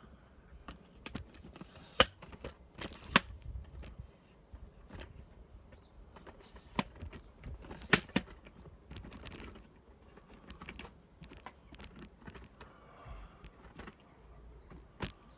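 Irregular clicks and knocks with some rustling, from a camera tripod being handled and its legs extended and adjusted; the sharpest clicks come about two, three and eight seconds in.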